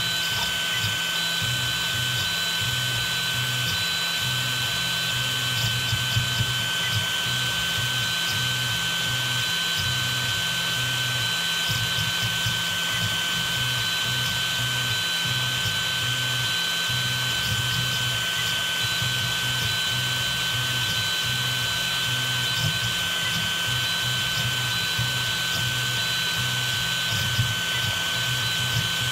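Desktop FDM 3D printer at work: its stepper motors hum in low tones that shift every fraction of a second as the print head makes its moves, over a steady high-pitched whine.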